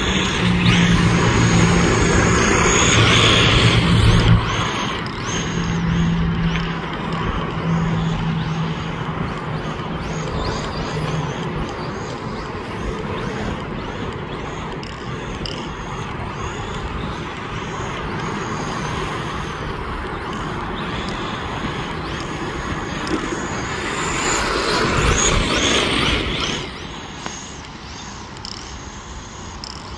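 Custom radio-controlled car driving and drifting on sand: a low steady motor hum that comes and goes with the throttle over the scrabbling noise of its wheels in the sand. The hum drops away after about eleven seconds as the car gets farther off.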